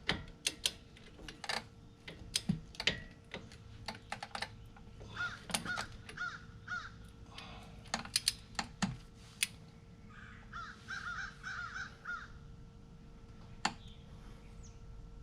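Metal tools clinking and clicking against the brake caliper and bolts as they are fitted and tightened. A bird calls in two short runs of rapid repeated notes, about five and ten seconds in.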